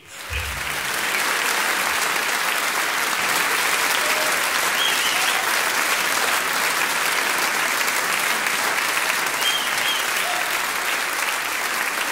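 Audience applauding: the clapping starts suddenly and keeps up steadily.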